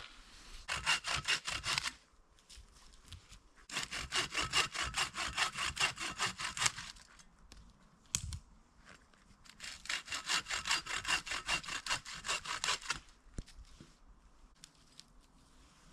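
Hand saw cutting firewood in three runs of quick back-and-forth strokes, a short one and then two longer ones, with brief pauses between.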